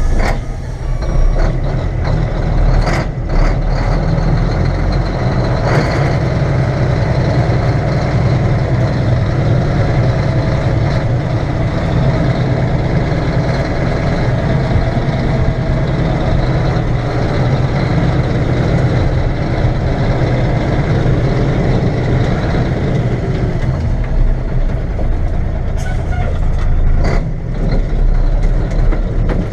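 Mack B61 dump truck's diesel engine running steadily under load in low gear, with a few short sharp knocks or hisses now and then.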